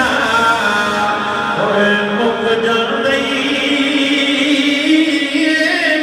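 A man's voice chanting devotional verse melodically into a microphone, holding long, wavering notes that glide slowly between pitches.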